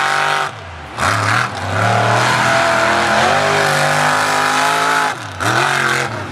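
Razin Kane monster truck's engine revving hard as it drives across the dirt, the pitch falling and climbing back with a brief lift off the throttle about half a second in and again about five seconds in.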